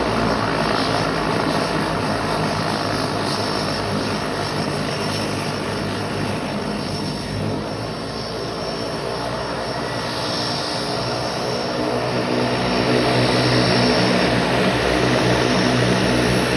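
Single-engine floatplane's propeller engine running steadily as it taxis on the water, easing off a little about halfway and growing louder again near the end.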